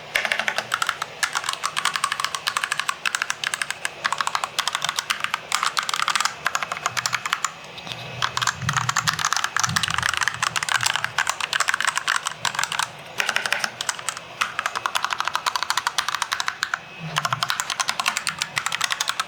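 Garuda GG68B mechanical keyboard being typed on fast: a continuous clatter of keystrokes with a few brief pauses.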